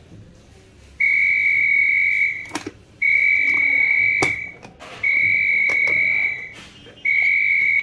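CP Plus IP video door phone ringing after its call button is pressed: a steady, high-pitched electronic ring tone in long beeps, each about a second and a half with short gaps, starting about a second in. A few sharp clicks of hardware being handled fall between the beeps.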